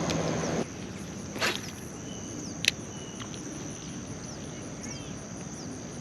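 Steady high-pitched chorus of crickets and other insects. A brief swish comes about a second and a half in, and a sharp click, the loudest sound, follows just before the middle.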